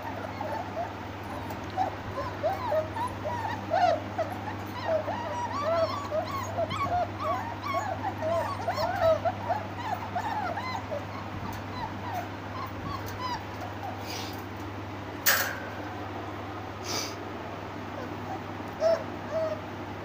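A litter of Labrador puppies whimpering and yipping together: a dense run of short, high whines that thins out after about ten seconds. A few sharp knocks come in the second half.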